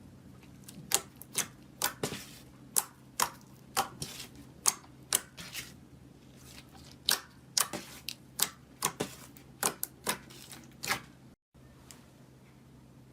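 Slime being pressed and poked, giving a run of sharp popping clicks at about two a second, irregularly spaced, that stops abruptly near the end.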